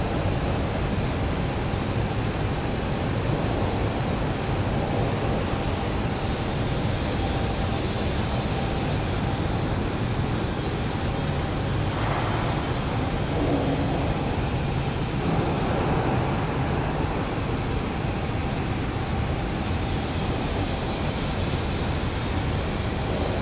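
A steady roar of running machinery, even and unbroken, with a few brief louder scuffs near the middle.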